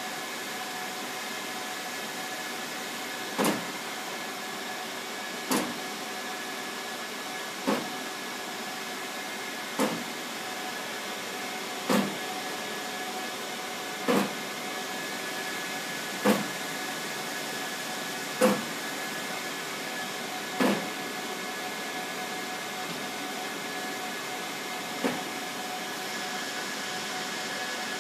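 HP Latex L25500 wide-format printer running, its carriage giving a loud bang about every two seconds as it travels, ten bangs in all with a longer pause before the last, over the machine's steady hum. The banging comes from the carriage even with the rails freshly lubricated and the felts oiled.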